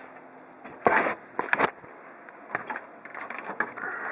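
Handling noise inside a desktop computer: a short rustle, then a quick run of sharp clicks and a few faint knocks, as cables and parts are checked by hand.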